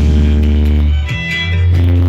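Bass-heavy music through a car sound system's subwoofers: long, deep, sustained bass notes, with a short break a little past a second before the next bass note swells in.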